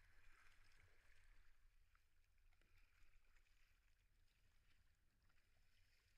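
Near silence: faint lapping and splashing of river water around the kayaks, a little stronger in the first second or so.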